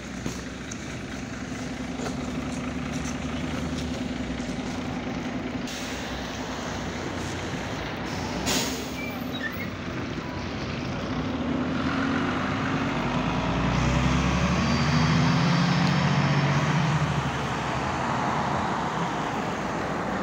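Irisbus Citelis 12 m city bus running at a stop. A short sharp hiss of compressed air comes about eight seconds in, then the engine revs up as the bus pulls away, loudest about three-quarters of the way through before easing off.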